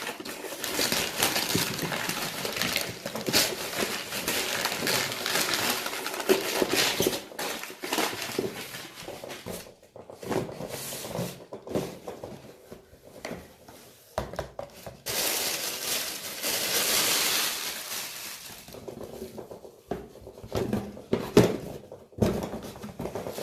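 A postal parcel's packaging being torn open and handled, with dense crinkling and crackling for the first several seconds, then intermittent rustles and a few knocks near the end.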